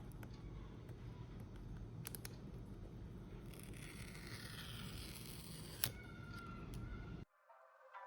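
Packaging being handled during an unboxing: a few light clicks and, midway, a rustling scrape lasting about two seconds, over a low steady hum. A little before the end the sound cuts off abruptly and faint brass music begins.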